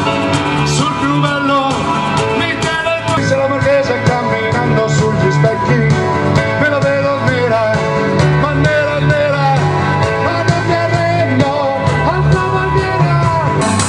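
Live pop-rock music in an instrumental passage: an electronic keyboard playing a melody over a backing of bass and a steady beat.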